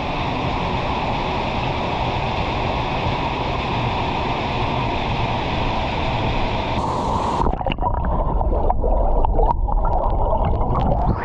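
Waterfall: a steady rush of falling water. About seven and a half seconds in, the sound turns muffled, with irregular crackles and thumps.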